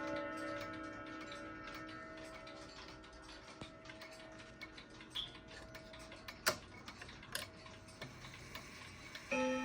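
Girod dual-chime wall clock: a struck chime note dies away over several seconds while the movement ticks steadily, with two louder mechanical clicks about six and a half and seven and a half seconds in. A new chime note is struck near the end.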